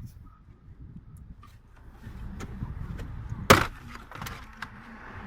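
Scattered clicks and handling noises over a low rumble, with one loud, sharp clack about three and a half seconds in.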